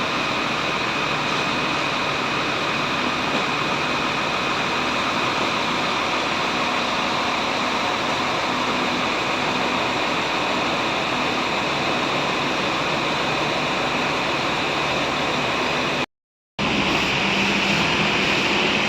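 Steady running noise of buses, engine and air-conditioning hum with faint steady high tones, dropping out for a moment near the end before returning.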